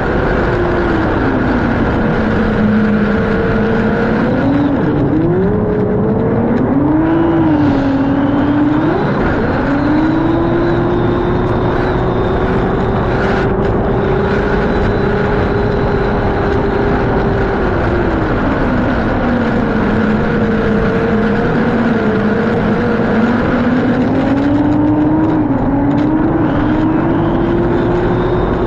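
Race boat's high-performance engine running at speed on the water. Its note drops as the throttle eases a few seconds in, climbs back and holds high for several seconds, then drops and climbs again near the end.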